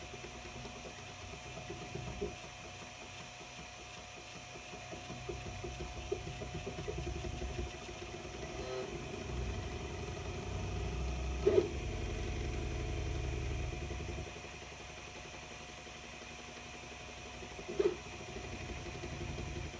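Ortur Laser Master 2 Pro diode laser engraver running a fill pass, its stepper motors whirring in a fast repeating pattern as the head scans back and forth across the tile, over a steady hum. Two sharp knocks, one near the middle and one near the end.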